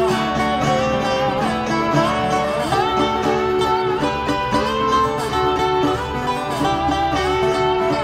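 Live acoustic string band playing a bluegrass-style song: picked acoustic guitar with a slide dobro, some notes gliding in pitch.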